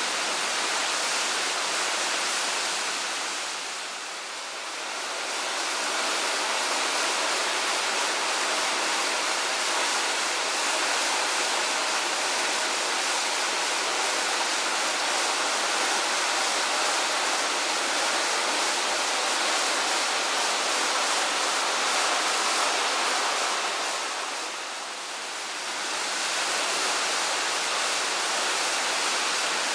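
Tanashita Fudo Falls' Odaki (male falls) pouring down: a steady rush of falling water, dipping in level briefly about four seconds in and again some five seconds before the end.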